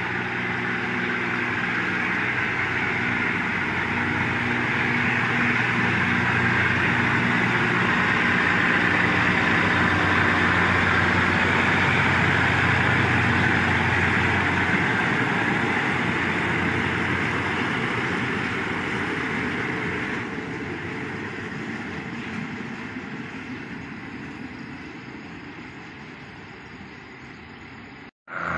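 Diesel railcar train passing along the platform: the engine runs under a rushing rumble of wheels on the rails, growing loudest about ten seconds in and then fading as the train draws away. The sound cuts out briefly near the end.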